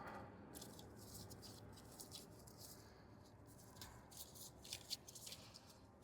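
Faint, irregular small clicks and scratches of pliers working at the pins of a car's multi-pin plastic electrical connector, over low room hum.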